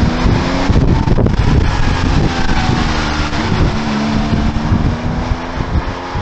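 Porsche 911 Carrera RS 2.7's air-cooled flat-six engine running under way. The revs shift slightly up and down as the car drives.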